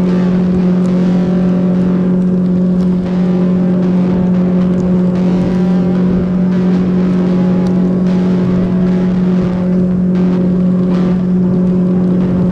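Boat motor running steadily at a constant speed, with a loud, even hum and water and wind noise underneath.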